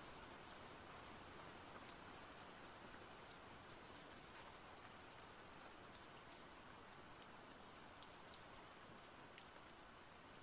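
Faint steady rain, with scattered drops ticking.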